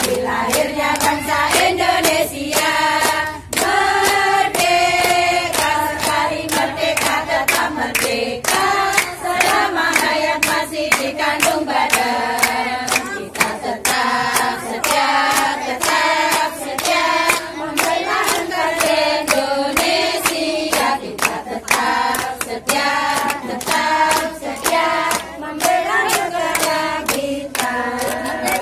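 A group of women singing together in unison while clapping their hands in a steady rhythm.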